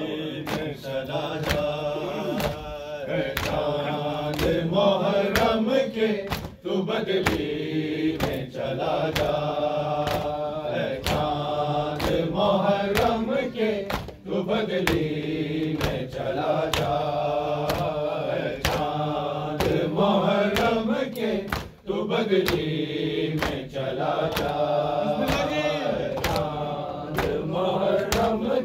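Voices chanting a noha, the Shia lament for Husayn, over a steady beat of sharp slaps: hands striking chests in matam.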